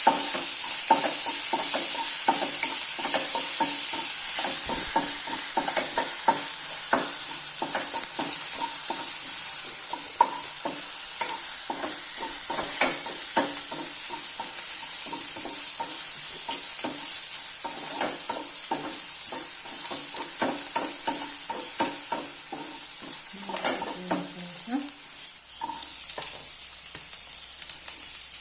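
Crushed garlic, ginger, black pepper and fennel seeds sizzling in hot oil in a pan, with a steady high hiss. A spoon scrapes and taps against the pan in many irregular clicks as the mix is stirred. The sizzle dips briefly about 25 seconds in.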